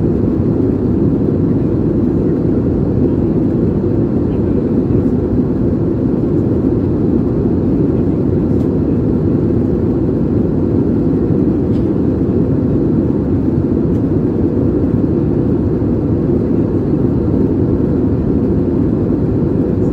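Steady low cabin noise of a jet airliner in cruise flight, the hum of engines and airflow heard from a window seat.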